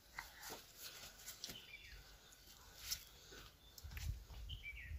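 Faint scattered clicks and clinks of steel bowls and plates handled during a meal eaten by hand, with a few short high chirps, two of them near the end.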